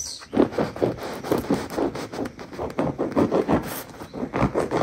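Knife sawing through a day-old, hard bread roll on a wooden cutting board: a rhythmic rasp of the crust, about three to four strokes a second.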